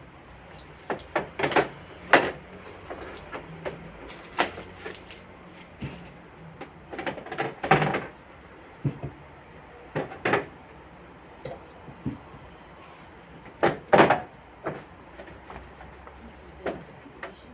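Irregular knocks, clacks and scrapes of containers and refrigerator shelves or drawers being handled, taken out and set down during fridge cleaning.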